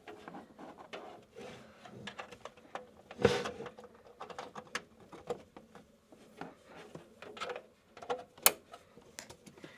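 Handling noise from a small video recorder box and its cables being moved and plugged back in: scattered clicks, taps and rubbing, with a firmer knock about three seconds in and a sharp click near the end.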